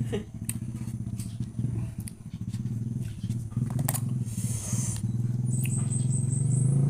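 A low, steady motor rumble, growing louder toward the end, under small clicks and scrapes as the rind of a wild passion fruit is peeled with fingers and a knife and the fruit is pulled apart by hand.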